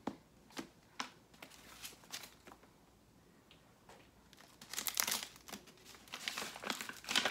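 Brown kraft wrapping paper crinkling and tearing as a parcel is unwrapped by hand. A few scattered rustles come first, then a short lull, then denser crinkling from about halfway through.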